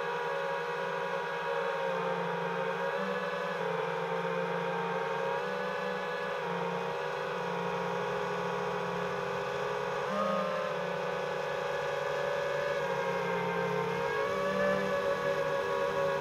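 A GepRC Mark4 5-inch FPV quadcopter's brushless motors whine steadily in flight. The pitch drifts with the throttle and briefly rises about ten seconds in.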